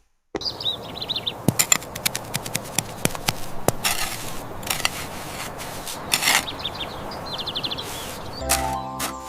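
Irregular sharp taps and knocks, like hammering, over a steady background hiss, with a couple of quick high chirping runs. Music comes in near the end.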